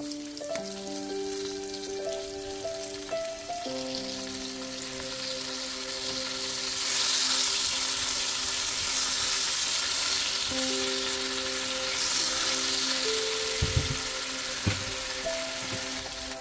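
Salmon fillets frying in melting butter in an enameled cast-iron skillet: a steady sizzle that grows louder about seven seconds in while a silicone spatula bastes them, with a couple of dull knocks near the end.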